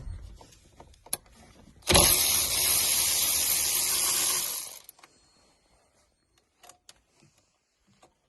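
A power ratchet with a 10mm socket on an extension runs for about three seconds, backing out a steering-wheel airbag mounting bolt, with small tool clicks before and after.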